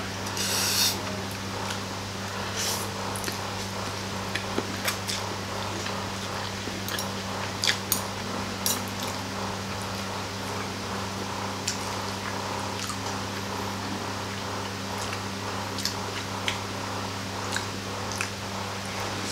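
A person slurping and chewing noodles, with a loud slurp about a second in, and short clinks of a metal fork and spoon against the plate, over a steady low hum.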